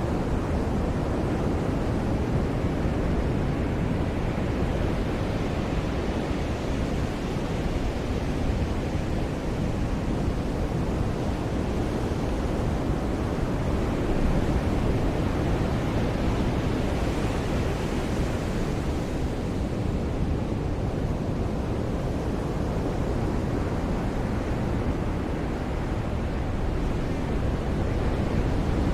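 Ocean surf washing onto a beach: a steady rush of breaking waves, with a slight swell in hiss about two-thirds of the way through.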